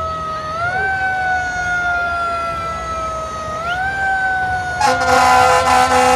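A siren wails, rising quickly and then falling slowly, twice over. Near the end, a semi truck's air horn gives two loud blasts.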